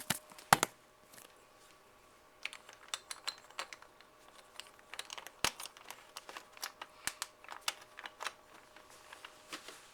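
Plastic pieces of a microwaved Rubik's Cube clicking and snapping as they are handled and pressed back together. The clicks are irregular, with a loud snap about half a second in and a short pause after it.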